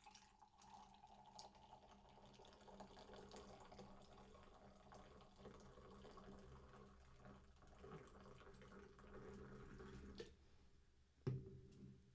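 Canned fruit-punch soda with vodka poured in a high stream from its aluminium can into a wine glass: faint pouring for about ten seconds. Near the end comes a single knock as the can is set down on the table.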